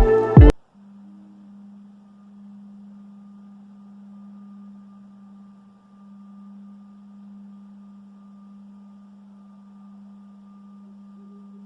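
A loud musical sting cuts off about half a second in, leaving a steady low hum on one pitch with a faint higher tone above it. This is the kind of droning hum that gets reported as a strange sound in the night sky.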